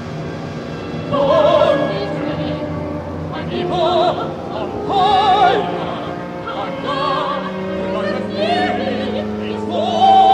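Soprano singing short, high phrases with a wide vibrato over held low orchestral tones, in a modern orchestral work.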